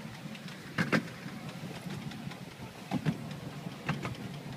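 Ride-on miniature railway train running along its track: a steady low rumble of wheels on rail, broken by a few short sharp clacks.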